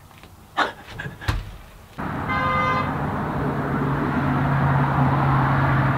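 About two seconds in, a steady low rumble of outdoor noise begins, and just after it starts a short, even-pitched toot like a car horn sounds once. Before that there is only a quiet room with a couple of faint brief sounds.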